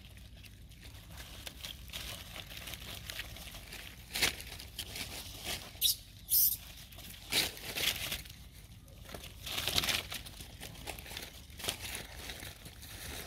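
Dry fallen leaves rustling and crunching in scattered short bursts as they are stepped on and disturbed, with a few louder crackles in the middle.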